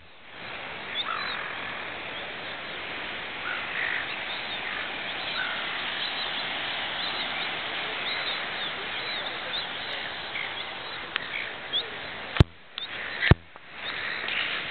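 Many short bird calls from seagulls, scattered over a steady wash of wind and sea noise. Two sharp knocks about a second apart near the end.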